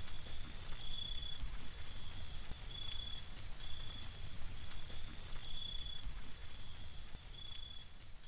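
Short high-pitched chirps repeating about every half second to a second over a steady low rumble, like a night ambience.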